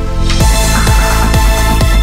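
Electronic dance music as a background track. A fuller section with a steady beat of deep kick drums, about two a second, comes in about half a second in.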